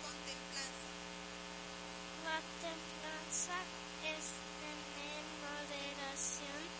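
Steady electrical mains hum from a microphone and sound system, with a child's few faint, separated words spoken into a handheld microphone over it.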